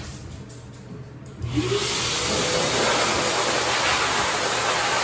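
Self-service dog wash station's pet dryer blower switching on about a second and a half in: a short rising whine as the motor spins up, then a steady rush of air from its hose.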